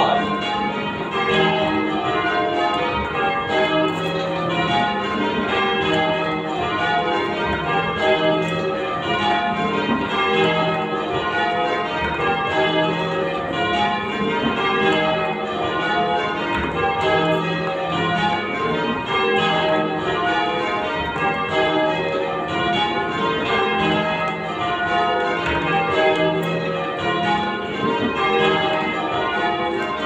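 A ring of church tower bells being rung in changes, the bells striking one after another in a steady, unbroken rhythm. The bells are heard from the ringing chamber beneath them.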